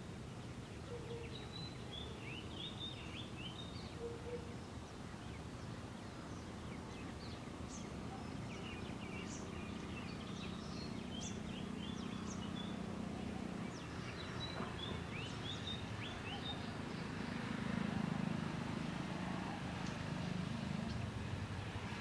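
Small birds chirping, with many short high chirps and calls scattered all through, over a steady low rumble that grows louder past the middle.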